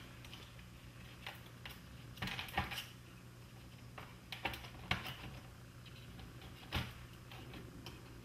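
Scattered light clicks and taps of metal and plastic parts as the cassette transport mechanism is worked back into the Technics RS-M275 deck's chassis, with a faint low hum underneath.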